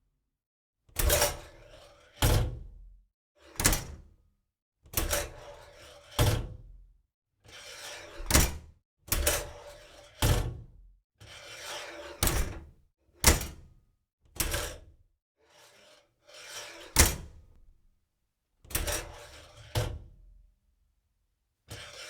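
Oven door opened and shut over and over: each time a softer sound of the door swinging, then a sharp thunk as it closes, about a dozen times with short pauses between.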